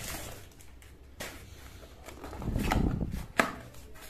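Hands handling a plastic courier mailer and a small cardboard box, working the box out and opening its flap: soft rustling and scraping, with a sharp click of card about a second in and another near the end.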